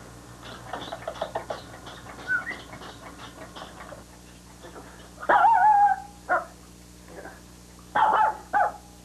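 A dog yipping and barking: a long wavering whiny yelp about five seconds in, then a few short sharp barks near the end.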